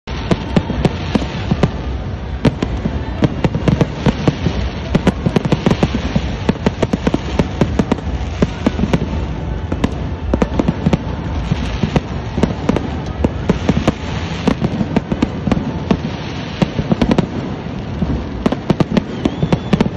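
Fireworks crackling and banging in rapid, irregular succession over a steady background din.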